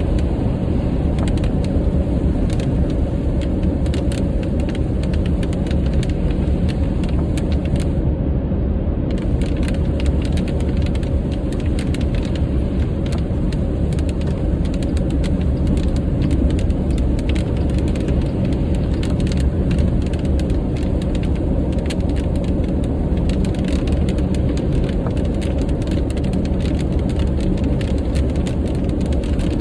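Inside a car at highway speed in rain: a steady low rumble of road and tyre noise, with raindrops ticking irregularly on the windshield.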